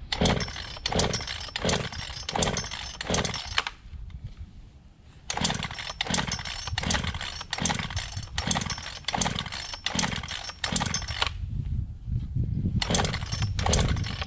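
A two-stroke gas chainsaw with water in it, its engine going in rhythmic pulses about two or three a second. It comes in three runs broken by two short pauses.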